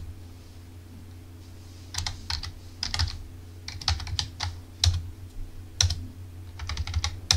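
Computer keyboard typing: irregular runs of key clicks starting about two seconds in, over a steady low hum.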